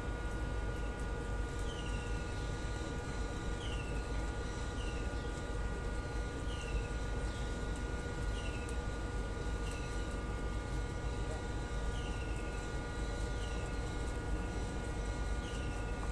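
A steady low hum, with a short, high chirp falling in pitch, repeated about once a second.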